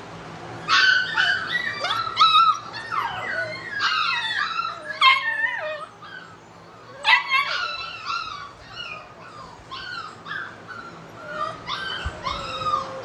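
A litter of American bully puppies yipping and whining in many short, high-pitched, overlapping calls that start about a second in. There is a brief lull around the middle, and the calls then come back sparser.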